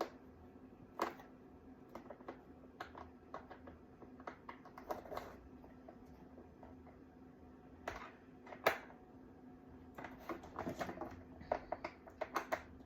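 Irregular light clicks and knocks of plastic parts being handled while a portable shampoo bowl's hose fitting is tightened. The clicks come quicker near the end, over a steady low hum.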